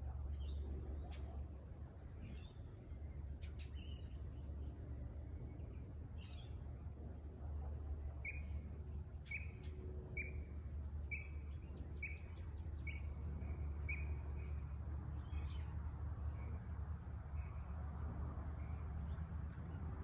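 Birds chirping: scattered short high chirps, with a run of about eight short, evenly spaced calls through the middle. Under them runs a steady low rumble.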